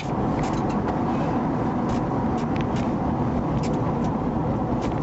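Steady road and engine noise inside a police car's cabin, with a few faint clicks and knocks.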